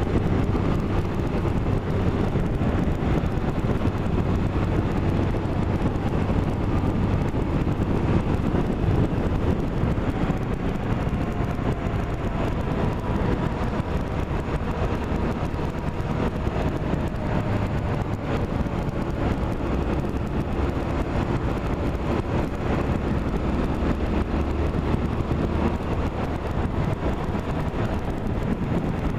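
Steady running noise of a moving road vehicle: a low drone with faint engine tones that slide slowly up and down.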